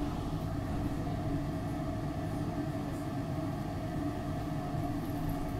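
Steady hum and drone inside a SEPTA Market-Frankford Line subway car standing at a station, with a low rumble under a steady higher tone from the car's idling onboard equipment.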